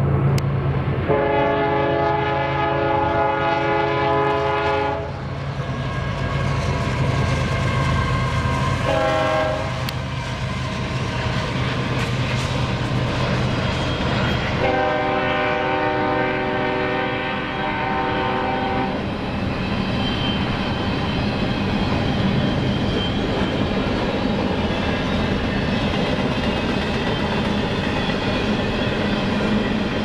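Union Pacific diesel freight locomotives sounding their horn as the train rolls by: a long blast about a second in, a short one about nine seconds in, and another long blast around fifteen seconds. The horn plays a chord of several notes. Under it runs the steady rumble of the diesels and the rolling stack cars on the rails.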